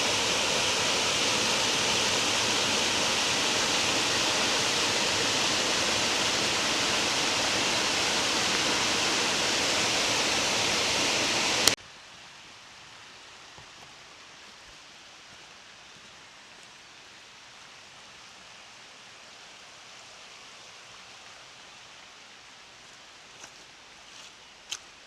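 Waterfall rushing steadily. About halfway through it cuts off abruptly to a much fainter steady outdoor hiss, with a few light clicks near the end.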